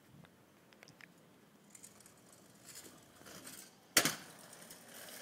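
A kick scooter hitting asphalt in one sharp clack about four seconds in, as the rider lands a drop off a concrete ledge. A growing rolling rattle leads up to it.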